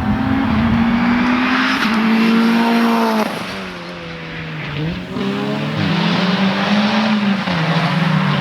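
Race car engine at full throttle. A little past three seconds in the revs drop and it quietens, then about five seconds in it pulls hard again with the pitch stepping through gear changes.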